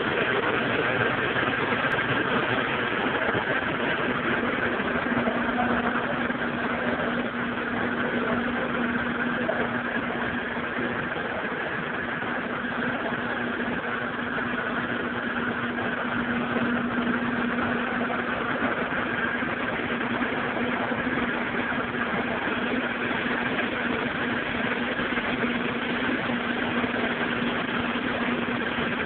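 Honda K-series inline-four, swapped into an EG Civic, idling steadily with no revving.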